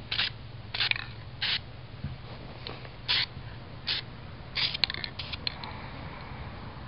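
Aerosol can of black spray paint sprayed in about six short, quick bursts, each a brief hiss a fraction of a second long, followed by a few light taps and clicks near the end.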